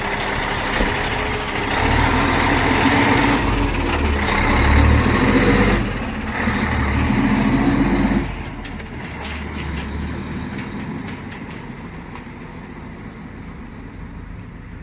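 Peterbilt semi truck with a Cummins diesel pulling away under load, its engine revving, with a steady deep horn blast that cuts off sharply about eight seconds in. The engine then fades as the truck drives off.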